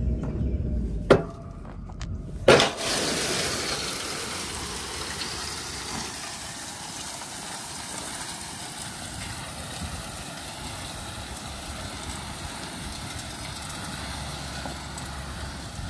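Crushed gravel pouring out of the open tailgate of a tipped dump trailer, a steady rushing hiss of rock spilling onto the ground as the trailer is pulled forward. A couple of sharp knocks in the first few seconds as the flow starts, with a low engine rumble from the towing truck underneath.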